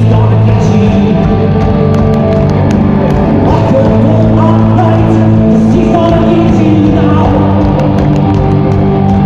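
Live rock band playing loud, steady music, with sustained held chords.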